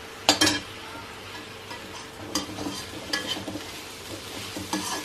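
Finely chopped onions frying in mustard oil in a kadhai, with a steady hiss as they are stirred and a spoon or spatula knocking against the pan several times.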